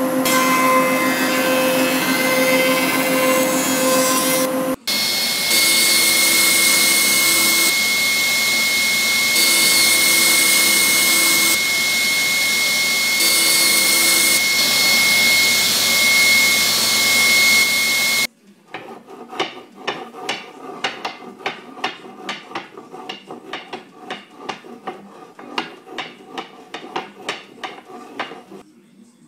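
JET thickness planer running on a hardwood panel. After a short break, a sliding table saw runs with a high steady whine and a lower tone that comes in and drops out as it crosscuts the glued-up strips. Then a quick, even series of light wooden clacks, about three a second, as the end grain blocks are set down one by one.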